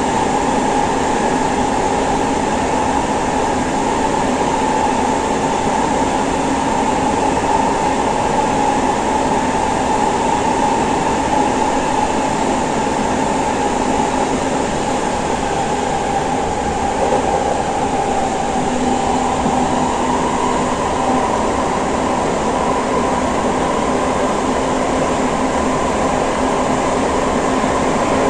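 Interior running noise of a Siemens C651 metro train car travelling between stations: a steady rumble of wheels on rails with a constant whine. The whine sags a little in pitch about two-thirds of the way through, then rises again.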